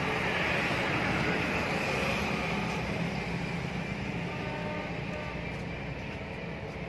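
Steady rumble of a motor vehicle engine with a hiss on top, easing off slightly over the seconds.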